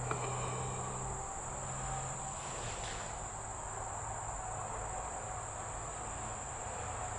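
Insects outside trilling steadily in one high, unbroken tone, over a low drone of highway traffic.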